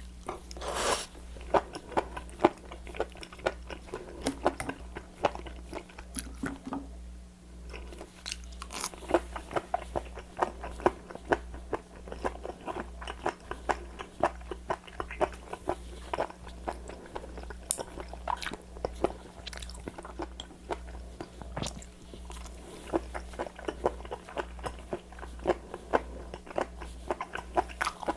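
Close-miked chewing and biting of raw seafood: many short, sharp mouth sounds in quick, irregular succession, over a low steady electrical hum.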